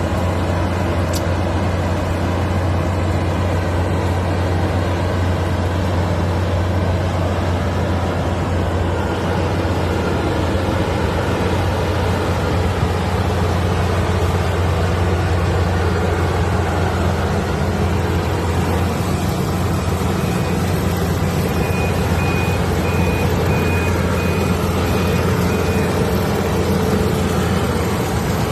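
Rice combine harvester running steadily with a deep, constant engine drone. A faint beeping comes in for a few seconds late on.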